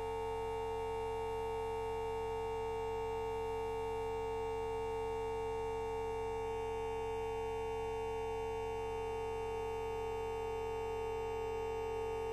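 A fart sound effect time-stretched to an hour, heard as a steady droning hum of several held tones that barely change. The upper tones shift slightly about halfway through.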